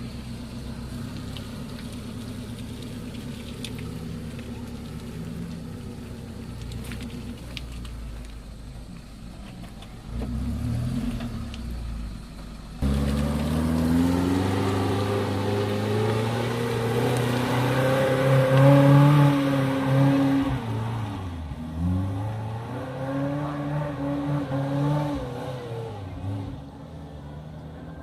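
Suzuki Jimny engine running low and steady, then suddenly revving hard under load about halfway through. Its pitch climbs and falls, dips briefly, and rises again before easing off near the end as the stock 4x4 works over wet, muddy off-road ground.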